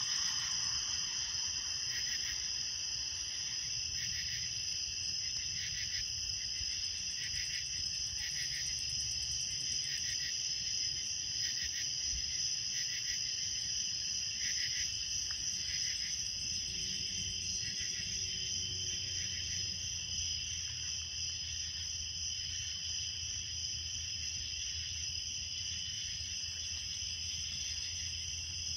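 Late-summer night insect chorus: crickets trilling steadily at several high pitches, with another insect's softer pulsed call repeating about once a second through the first half.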